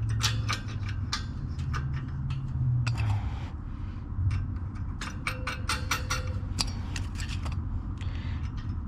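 Irregular small metal clicks and taps of hardware being handled and fitted to a steel wire bike basket, over a low steady hum.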